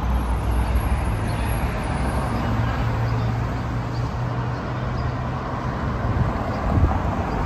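Street traffic at a city intersection: a steady wash of vehicle noise with a continuous low engine hum underneath.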